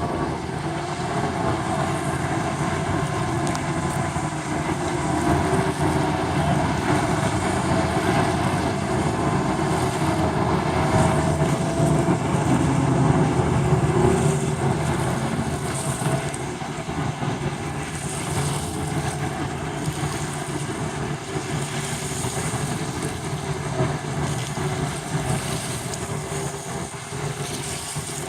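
Outboard motors of bass boats running together, a steady engine drone that swells louder around the middle and then eases off.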